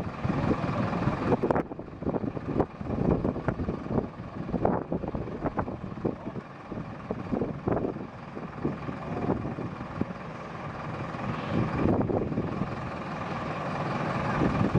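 Fuel tanker truck's engine running steadily as jet fuel is pumped through the hose into the aircraft, with wind buffeting the microphone in irregular gusts.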